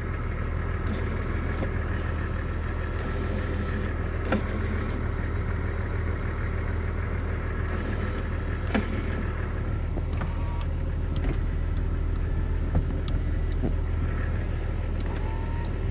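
Jeep power window motor whining as a newly installed driver's master window switch is tested. It runs for several seconds, stops, and runs again near the end, over a steady low hum and a few clicks.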